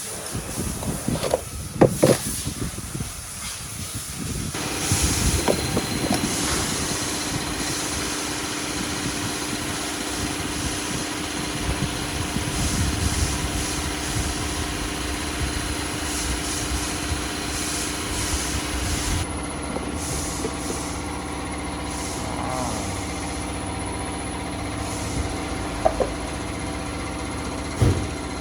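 A machine running steadily with a hiss. A steady hum joins it about four and a half seconds in, and a few short knocks come near the end.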